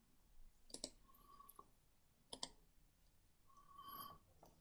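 Near silence broken by a few faint, isolated computer mouse clicks.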